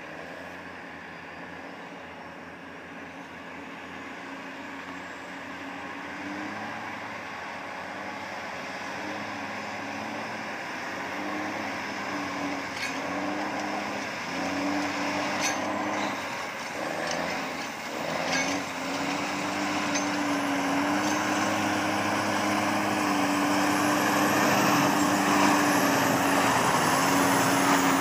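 Diesel engines of a loaded Kenworth T800 log truck and the 545C skidder pushing it, working hard up a short steep grade. The engine note grows steadily louder as they approach and shifts pitch a few times, with a few short clicks or clanks midway.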